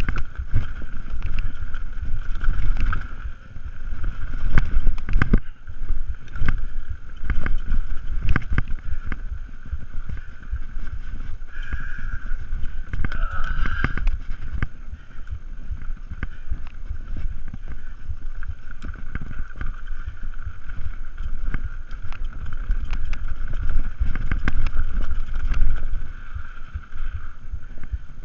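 Mountain bike riding fast down a dirt trail: wind rush on the microphone and tyre rumble, with frequent knocks and rattles from the bike over rough ground and a steady high buzz underneath.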